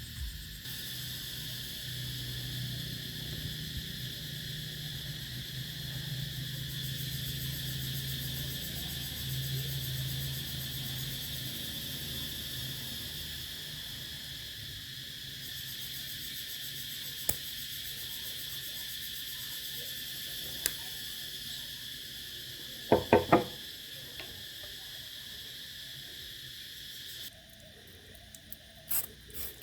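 Steady chorus of crickets chirping, with a couple of single clicks and a quick run of about four sharp knocks some 23 seconds in. Near the end the chirping drops away and rhythmic rubbing strokes begin.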